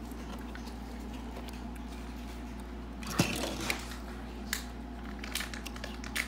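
Small tabletop handling noises over a steady low room hum: a sharp knock about three seconds in, then scattered light clicks, as plastic spoons, cups and toy parts are handled.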